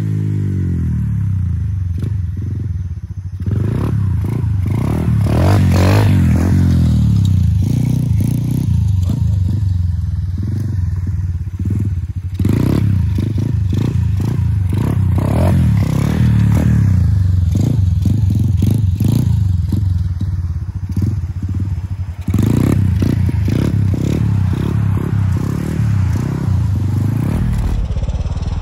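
A 125 cc Chinese pit bike's single-cylinder four-stroke engine revving hard under wheelies. It climbs and falls in pitch over and over as the throttle is worked, with a few brief cuts in power.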